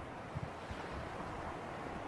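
Sea breeze by the shore: a steady wash of wind and surf, with a couple of brief low thumps about half a second in.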